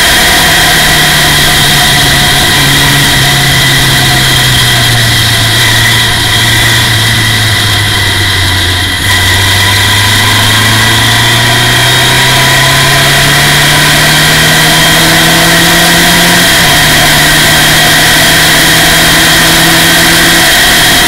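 Formula Ford race car's engine heard from the open cockpit. The revs fall for about nine seconds as the car slows for a corner, then climb steadily as it accelerates out. About sixteen seconds in the pitch drops abruptly at an upshift, then pulls up again.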